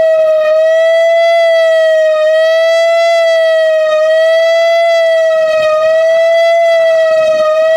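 Whelen 4004 rotating electronic tornado siren sounding a steady alert tone during its test. The single loud tone wavers slightly in pitch about every second and three quarters as the siren head turns.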